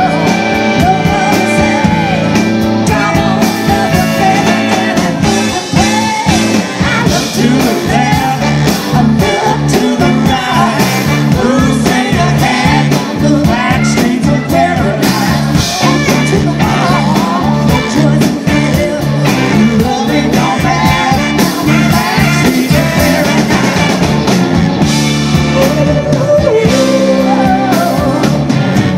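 Live rock band playing with a woman singing lead: electric guitars, electric bass, drum kit and organ under her voice.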